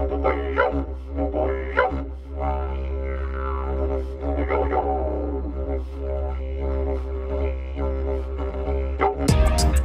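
Didgeridoo music: a steady low drone with shifting, pulsing overtones. Near the end, sharp percussive hits come in over it.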